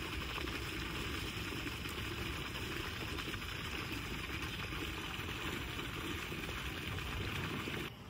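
Shallow water running steadily over a flat stone bed: an even, continuous trickling rush.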